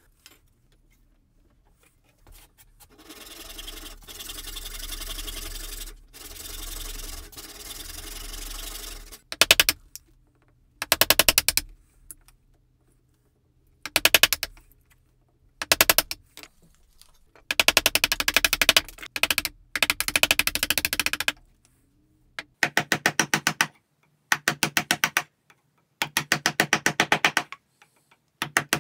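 A wood chisel paring and splitting chips off an oak block to rough out a mallet handle: about a dozen short strokes, each a rapid run of fine crackling clicks. Before them, near the start, comes a longer stretch of steady scraping.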